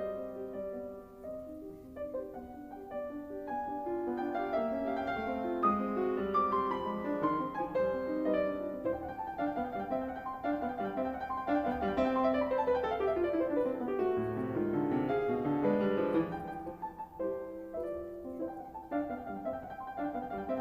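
Background piano music: a flowing solo melody with quick runs of notes.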